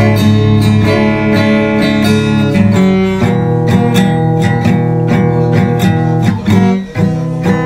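Strummed acoustic guitar playing chords between sung lines of a slow ballad, dipping briefly about seven seconds in.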